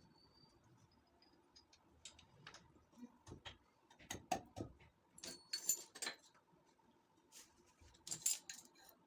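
Small metal parts or tools clinking and clattering as they are handled, in scattered clicks and several short bursts, the loudest around the middle and again near the end.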